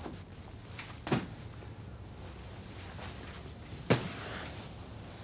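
Two sharp thumps about three seconds apart, with faint rustling and a light tap between them, as a man handles a pillow and climbs into bed.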